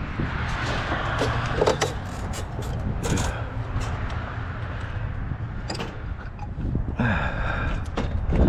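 A steady low engine rumble with many irregular knocks and metallic clanks over it.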